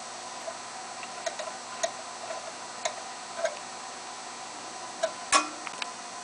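Scattered small clicks and taps of hand work on wiring and metal parts, irregular and a second or so apart, with one sharper click about five seconds in, over a steady faint hum.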